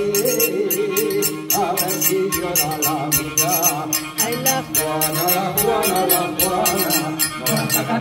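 A Spanish folk song sung by several voices over a quick, steady beat of traditional hand percussion played on household objects such as a clay jug and a glass bottle.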